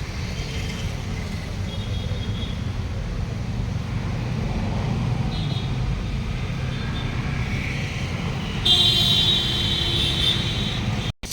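Steady low rumble of vehicle engines and road traffic. About nine seconds in, a loud high-pitched tone sounds for about two seconds.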